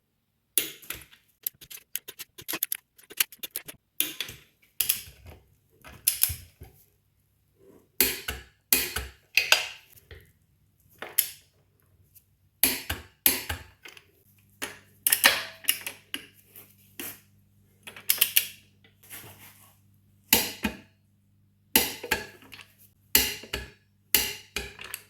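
Irregular sharp metallic clinks and knocks of hand tools and steel hardware being handled, in quick clusters with short gaps. A faint steady low hum sits underneath from about five seconds in.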